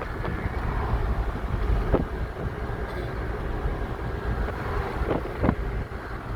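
Steady low rumble of road traffic with wind buffeting the microphone, and a few brief knocks.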